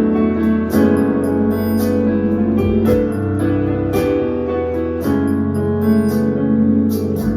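Electric piano keyboard playing slow, sustained worship chords over low bass notes, with crisp high ticks keeping a steady rhythm above them.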